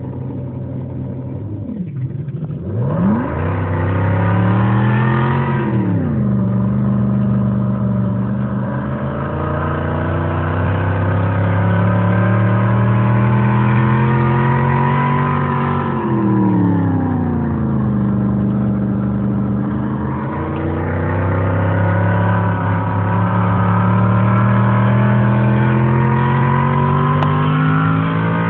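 Ford V8 engine heard from inside the car while driving, the engine note rising and falling with the throttle. It climbs, drops sharply about five seconds in, climbs steadily again, falls away around sixteen seconds, then climbs once more near the end.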